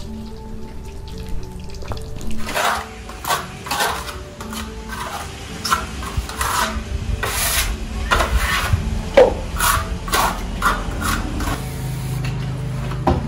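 Irregular scraping strokes of a hand tool against a fresh cement-plastered wall, roughly one to two a second, starting about two seconds in, over quiet background music.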